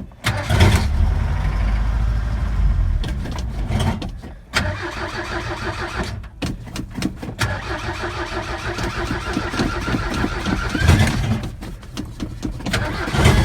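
Ford Ranger pickup engine being cranked and started after a few pumps of the gas pedal. It catches and runs in stretches, dropping out briefly about four and a half seconds in and again near the end before picking up. Loose parts on the newly installed floor rattle.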